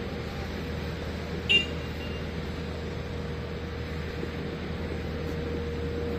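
Steady outdoor hum and hiss of street ambience with a faint held tone, broken once about a second and a half in by a short, high beep.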